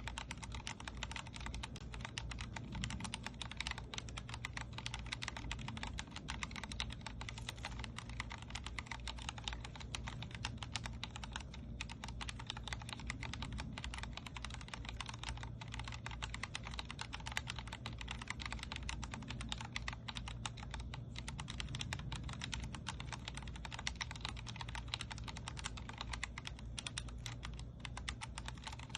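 Continuous fast typing on a Vortex Core 40% mechanical keyboard with Cherry MX Speed Silver linear switches: a dense, unbroken stream of key clicks and keystrokes bottoming out.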